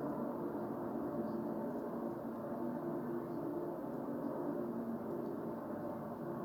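Loud, steady droning hum made of several held tones that do not change: an unexplained noise outdoors that has kept on for hours.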